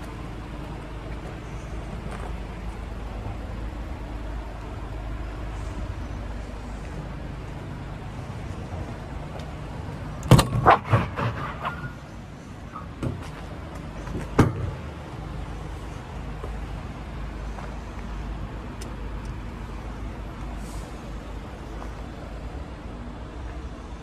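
Metal locking-bar latches and hinges of an insulated box van's rear doors clanking as a door is unlatched and swung open: a quick run of sharp clanks about ten seconds in, then a few lighter knocks and one more loud clank a few seconds later. A steady low rumble runs underneath.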